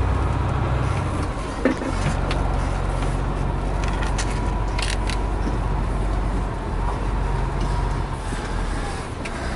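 Truck engine running steadily at low revs, heard from inside the cab as the truck creeps into a parking spot, with a few light clicks.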